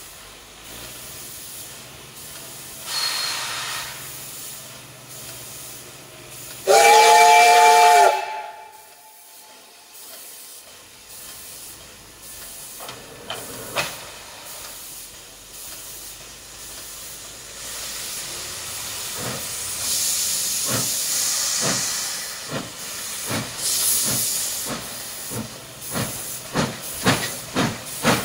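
Steam locomotive: a burst of steam hiss, then a short, loud blast of its steam whistle, several notes sounding together, about seven seconds in. After a lull the exhaust chuffs begin, slow at first and coming faster toward the end, with bursts of escaping steam hiss.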